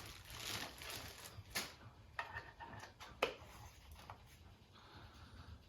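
Faint handling noise: a few light clicks and taps, two of them plainer, about a second and a half in and about three seconds in.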